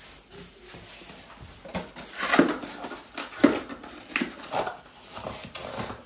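Handling noises from a small cardboard box holding the replacement refrigerator fan motor being picked up and opened: fairly quiet at first, then a run of sharp knocks and rustles from about two seconds in.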